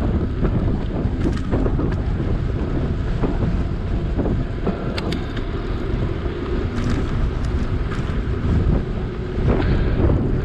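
Wind buffeting an action camera's microphone during an electric mountain bike ride, a steady heavy rumble, with scattered short clicks and rattles from the moving bike.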